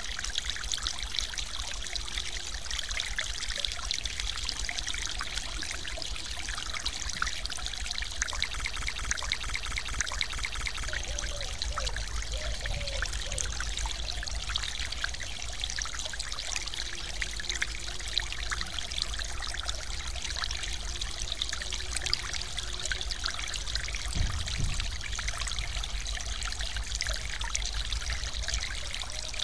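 Mountain-stream water splashing and pouring over a small waterfall: a steady, even rush dotted with constant small splashes.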